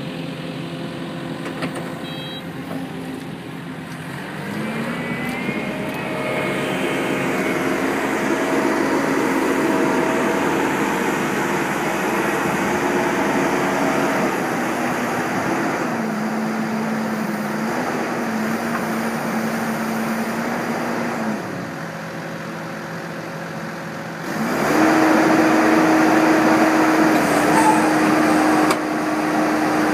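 Diesel engines of an excavator and a Kubota compact track loader running hydraulic screening and crusher buckets: a steady engine drone that revs up a few seconds in, drops in pitch about midway, and revs higher and louder near the end.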